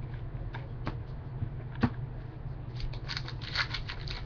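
Computer keyboard typing: a few separate key clicks, then a quick run of keystrokes starting about three seconds in, over a steady low hum.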